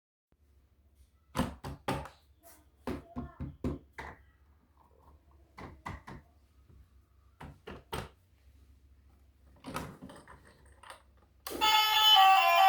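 A series of irregular light knocks and thunks, singly and in small clusters, then pitched music, heard as guitar, starts near the end.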